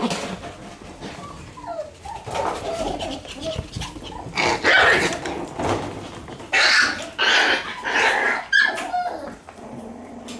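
One-month-old Shiba Inu puppies playing and wrestling, giving short high-pitched yaps and barks. Several louder yaps come in a cluster from about halfway through.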